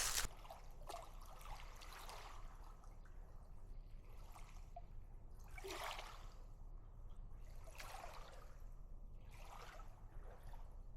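Faint small waves from the reservoir lapping and washing against the lake bank, with a soft splash every couple of seconds.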